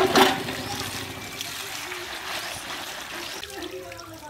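Water from a hand pump's spout pouring onto radish pieces in a bamboo basket, splashing and running as they are rinsed. It splashes loudest at the start, then settles into a steady pour.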